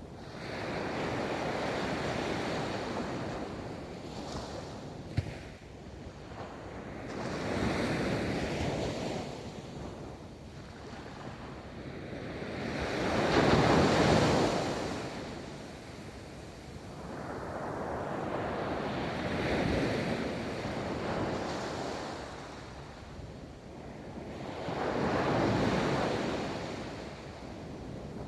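Ocean surf rolling onto a beach: five waves build and wash out about every six seconds, the loudest in the middle. A single sharp tick sounds about five seconds in.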